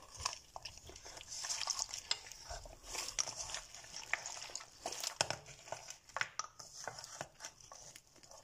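Hands squishing and kneading slime, with a steady wet crackling and many irregular small clicks as the plastic cosmetic tubes and bottles mixed into it are pressed together.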